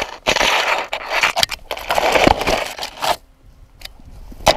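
Conifer branches scraping and crackling against a dog-mounted camera as the dog pushes through brush, in several loud rushes over the first three seconds, then a sharp knock near the end.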